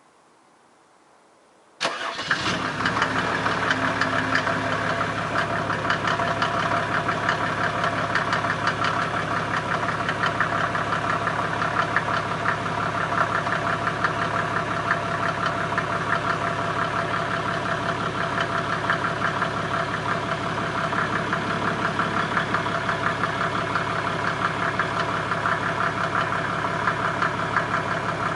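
Mercedes W126 300SDL's OM603 3.0-litre inline-six turbodiesel cold-starting at −2 °C: it fires suddenly about two seconds in and settles straight into a steady idle with fast, even diesel clatter, heard at the tailpipe.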